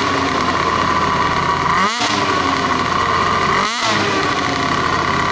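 Snowmobile engine running at high revs, its note dipping briefly about every two seconds.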